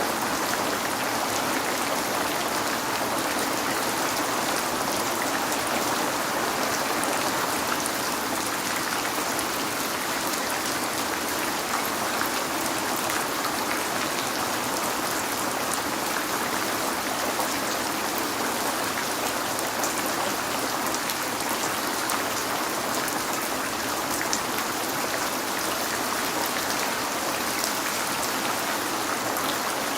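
Steady rain falling on a window: an even hiss with faint ticks of single drops, unchanging throughout.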